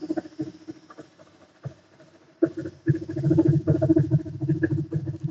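Speedaire 5 hp 60-gallon vertical electric air compressor running, a steady hum with a fast ticking rhythm from the pump. About two and a half seconds in it turns suddenly louder and heavier, then keeps running.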